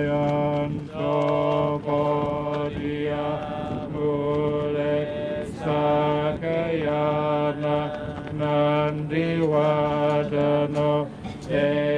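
Theravada Buddhist monks and nuns chanting in Pali together, a steady low-pitched recitation with held syllables and short pauses for breath; the pitch lifts briefly about nine seconds in.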